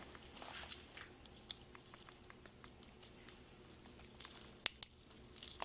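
Handcuffs being unlocked and taken off: light metal clicks and rattles with clothing rustling, and two sharp clicks close together near the end.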